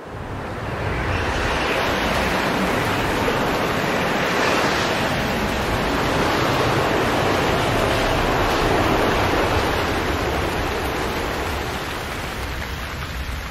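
Heavy rain sound effect: a steady rushing hiss that swells in over the first second or two and eases off near the end.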